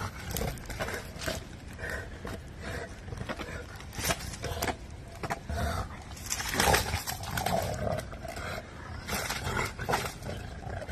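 American bulldog growling as it bites and worries an armadillo on the ground, with irregular crunching and rustling of leaf litter under its jaws and paws.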